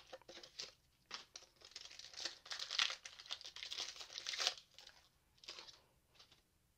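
Foil wrapper of a Pokémon card booster pack crinkling and tearing as it is ripped open, in irregular crackles from about a second in to past four seconds, then a few short rustles.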